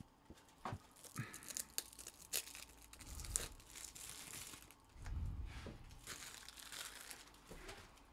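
Faint crinkling and rustling of packaging being handled, with scattered small clicks.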